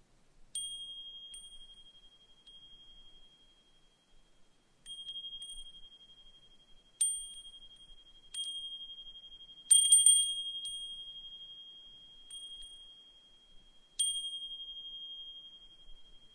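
Brass suzumushi furin (Japanese wind chime) struck by its clapper at irregular moments, about eight times. Each strike rings one high, clear tone with a fainter higher overtone that fades slowly. A quick flurry of strikes about ten seconds in is the loudest.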